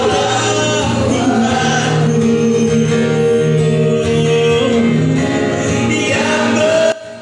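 A gospel song sung over instrumental backing, held sung notes, cutting off sharply just before the end.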